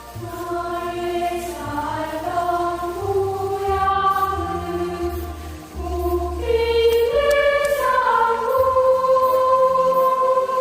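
Background music with singing: long held notes in a choir-like voice over a steady bass line.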